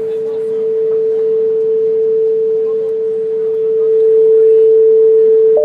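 A steady electronic sine tone from a sound installation's loudspeakers, one pure held pitch just under 500 Hz that grows a little louder about two-thirds of the way through. A second, higher tone joins it right at the end, with faint crowd voices underneath.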